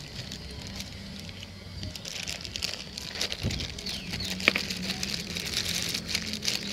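Plastic bag worn as a glove crinkling and rustling while a metal spoon scoops crumbly biscuit dough in a plastic bowl, with one sharp tap about four and a half seconds in. A low steady hum runs underneath.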